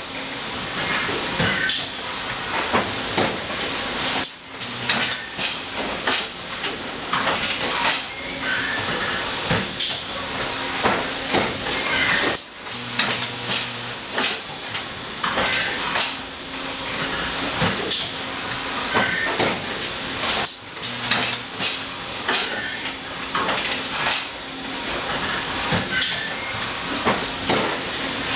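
Hydraulic plastics-forming machine running through its cycle: repeated metallic clanks and clicks over a steady hiss, with a low hum coming in briefly about every eight seconds.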